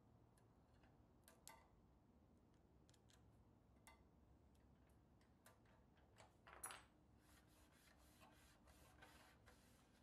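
Faint small clicks and taps of metal tweezers against the nickel-plated steel side of a 1954 Tonka Grain Hauler toy trailer as a decal is positioned. A brief scrape about two-thirds in, then a run of soft rubbing strokes as a fingertip smooths the decal down.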